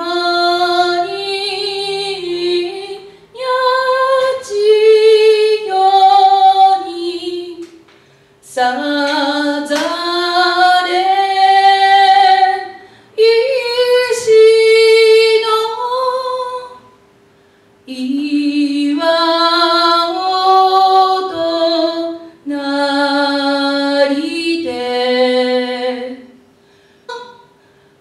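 A woman singing a national anthem solo and unaccompanied into a microphone, in slow phrases of held notes with short breaths between them.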